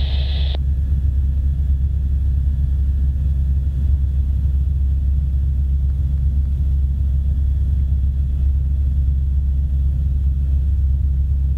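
Helicopter cabin noise: a steady, loud low drone of the rotor and engine. A hiss in the upper range cuts off suddenly about half a second in.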